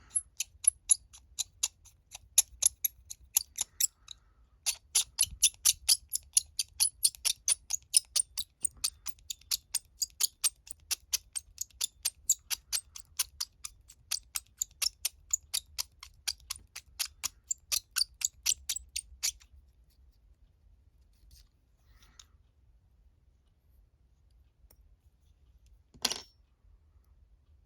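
Small hobby drill boring a hole for a scale-model valve stem, making a rapid, regular clicking of about three or four clicks a second. The clicking pauses briefly near four seconds, stops after about nineteen seconds, and one lone click follows near the end.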